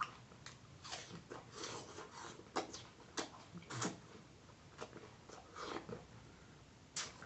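A person chewing and biting fresh fruit close to the microphone: irregular wet crunches, smacks and mouth clicks.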